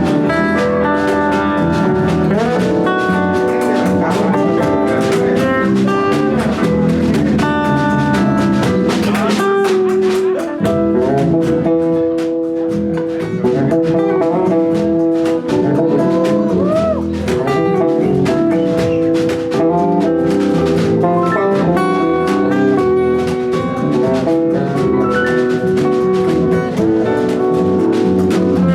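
A live band playing an instrumental passage with drum kit, guitar and other melodic instruments, in a jazzy style.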